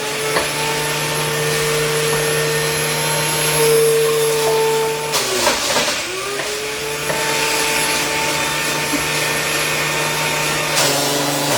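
Electric juicer motor running loudly while juicing apples and carrots. It spins up near the start, stops briefly about five seconds in, then spins up again and runs until it is switched off at the end.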